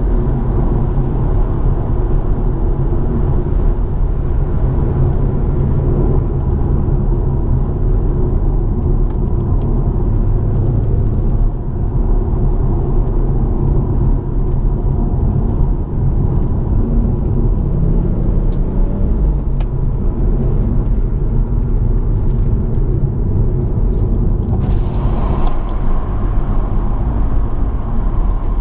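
BMW M140i's turbocharged straight-six with an M Performance exhaust, heard from inside the cabin while driving at fairly steady low revs: a continuous low rumble mixed with road noise. A short hiss comes near the end.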